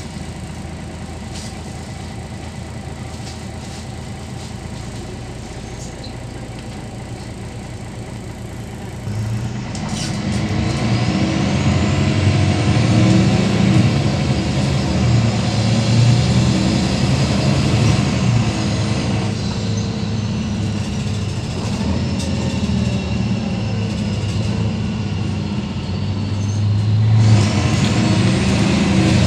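Six-cylinder MAN D2866 diesel of a MAN NL263 city bus, heard from inside the passenger cabin. It runs low and steady at first, then about nine seconds in pulls away hard, the engine note rising along with a whine that climbs and falls. It eases briefly about twenty seconds in and pulls hard again near the end.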